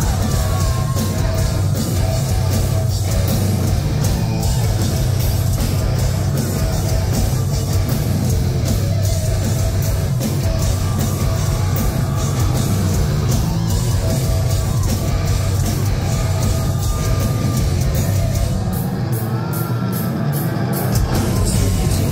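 A heavy rock band playing live at full volume through a concert PA: distorted electric guitars, bass and drum kit, with lead vocals over them. Near the end the deep bass and kick drop out for about two seconds before the full band comes back in.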